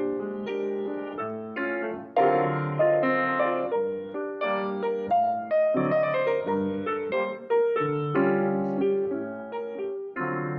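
Grand piano played solo: chords struck one after another, each ringing and fading before the next.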